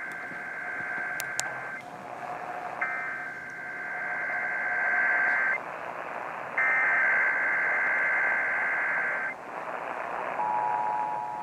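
Emergency Alert System SAME header: three bursts of screechy digital data tones, each about two and a half seconds long, sent over a hissy radio signal. Near the end the two-tone EAS attention signal begins, a harsh steady dual tone, marking the start of a required monthly test.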